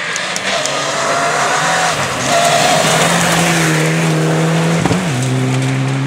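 Rally car engine running hard on a gravel forest stage, over the hiss of tyres on loose gravel. The engine note drops suddenly about five seconds in.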